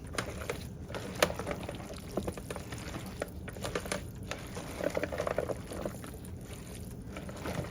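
Dressing-coated pasta salad being tossed in a bowl: wet squishing with irregular clicks of the utensil against the bowl.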